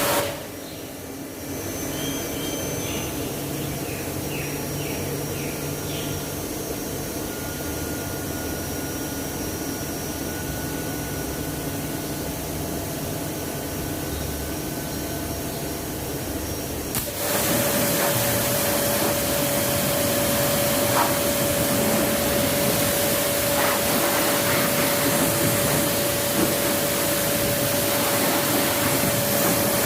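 Steady hiss of a high-pressure spray jet. It gets louder about 17 seconds in, when a steady whine joins it.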